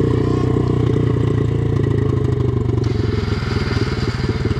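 Small single-cylinder dirt bike engine idling steadily.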